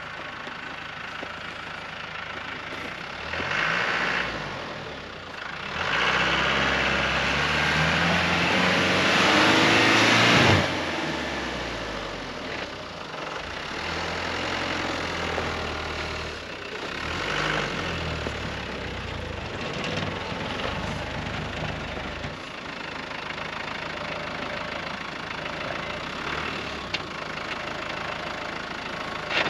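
Land Rover Defender 4x4 engine revving hard under load while driving through deep snow, with a rush of noise from the tyres churning snow. There is one short push and then a longer, louder one of several seconds, both in the first third. After that the revs drop and it runs steadier at lower load.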